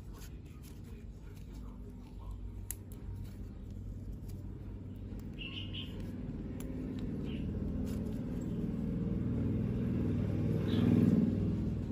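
A motor vehicle's low rumble grows steadily louder, peaks about eleven seconds in and then eases as it passes. A few short bird chirps and small handling clicks sound over it.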